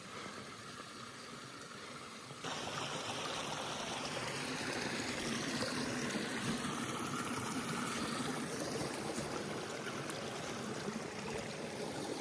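Small bush creek running over rocks, a steady rush of water that steps up suddenly about two and a half seconds in as the water gets nearer.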